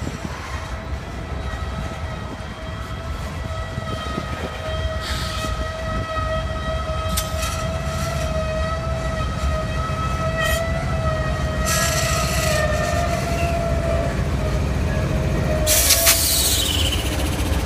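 Freight train rolling slowly past in a shove, tank cars giving way to its GE diesel locomotives, an NS Dash 9 and a CN ES44DC. A steady squeal rings through most of it, the locomotives' engine rumble grows louder from about halfway in, and a few sharp clanks and hisses break in, the loudest near the end.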